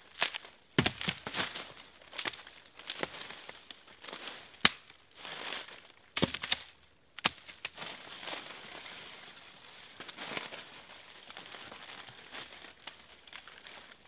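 Dry oak leaves and pine needles crunching and rustling underfoot and under hand while dead sticks are gathered for firewood, with irregular crunches and sharp cracks of wood. The sharpest crack comes a little under five seconds in. It gives way to steadier, quieter rustling in the second half as he stoops to pick up more.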